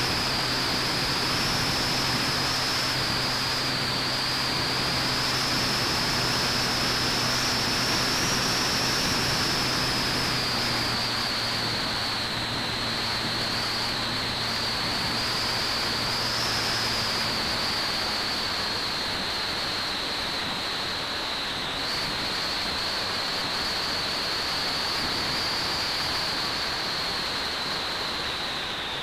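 Onboard sound of an EasyStar II RC foam plane in flight: the high whine of its electric motor, drifting up and down in pitch with throttle, over a steady rush of wind noise on the microphone.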